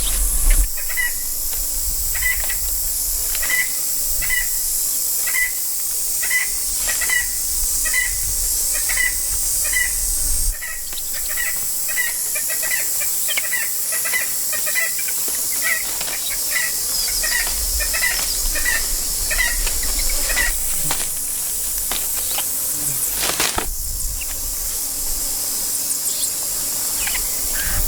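A bird gives a short high chirp over and over, about one and a half times a second, over a steady high hiss. The chirping stops about two-thirds of the way through.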